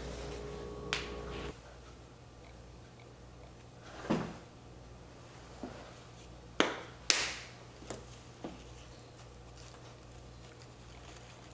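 A handful of separate sharp clicks and taps from hands working with spice containers and a glass dish on a plate, the loudest two close together past the middle. A low steady hum stops abruptly about a second and a half in.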